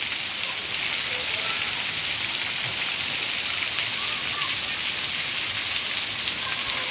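Heavy rain pouring down steadily, a dense, even hiss of a downpour hitting the street and ground.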